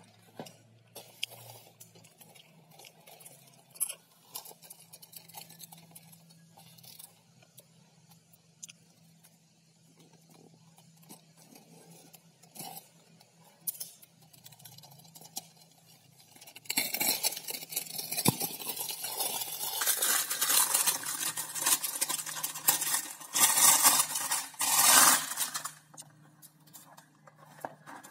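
Clear plastic shrink wrap on a toy car box being pierced and torn off: scattered small clicks and rustles at first, then from about seventeen seconds in a long loud spell of crinkling and tearing plastic lasting some nine seconds.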